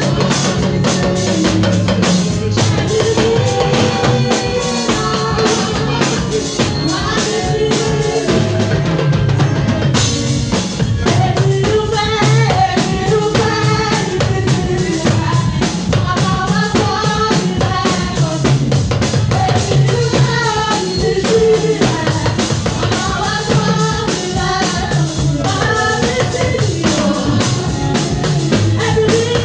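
Praise music: singing over a drum kit, with a steady beat.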